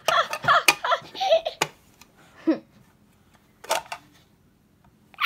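A toddler giggling and squealing in short high bursts around a dummy for about the first two seconds, with a few sharp clicks from plastic toys being handled.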